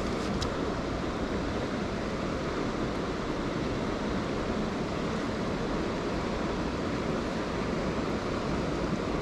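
Steady rushing noise of a flowing river, with wind rumbling on the microphone.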